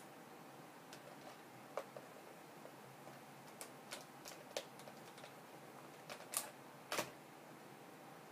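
Scattered small plastic clicks and taps as a sixth-scale action figure is posed and fitted onto its toy light cycle, about seven in all, the loudest two near the end, over a faint hiss.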